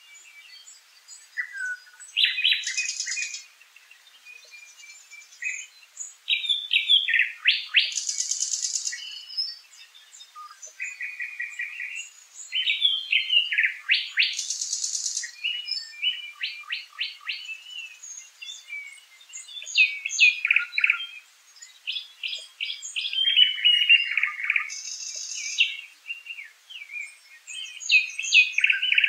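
Several songbirds singing, a dense chorus of chirps, trills and whistled phrases that follow one another every second or two.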